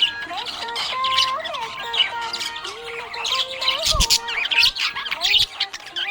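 Budgies chirping and warbling in fast, busy bursts, over a background music melody.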